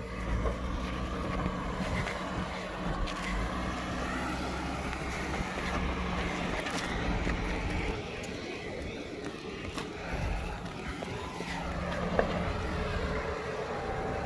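The 3.6-litre V6 of a 2012 Jeep Wrangler Rubicon running at low revs as it crawls over sandstone ledges, heard from outside the vehicle.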